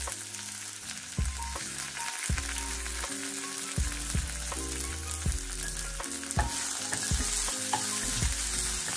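Hot oil sizzling in a nonstick kadai as split chana and urad dal fry with cumin, mustard seeds and dry red chilies, a wooden spatula stirring them near the end. Background music with piano-like notes runs underneath.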